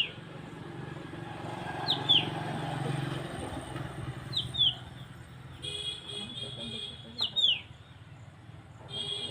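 A bird calling over and over, each call two quick falling whistled notes, about every two and a half seconds. A rapid, buzzy chattering call comes in twice in the second half, over a low rumble of traffic that swells about two seconds in.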